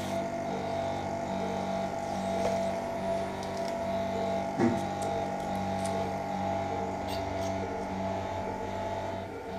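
Steady hum of operating-room arthroscopy equipment, several constant tones with a few faint clicks.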